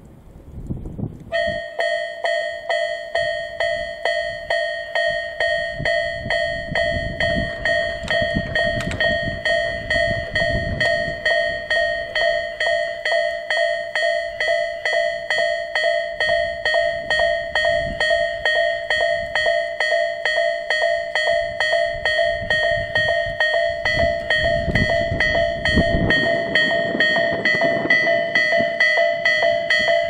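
Japanese railway level crossing warning bell starting up about a second and a half in, then ringing in even, rapid dings of one ringing tone, two to three a second. It signals a train approaching as the barriers come down.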